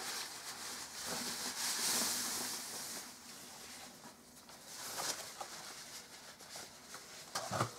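Paper packing rustling and crinkling as it is pulled off an instrument, loudest about one to three seconds in and fainter after.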